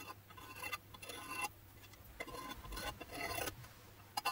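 Steel scriber scratching along the edge of a plastic template on 10 mm steel flat bar coated with Dykem layout fluid, in several short scraping strokes.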